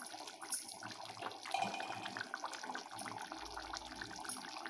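Thin chicken curry boiling in a clay pot, with faint, irregular bubbling and popping.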